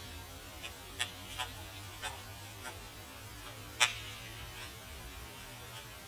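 White-backed woodpecker's bill striking birch wood: about half a dozen sharp, irregular taps, the loudest nearly four seconds in, over a steady low hum.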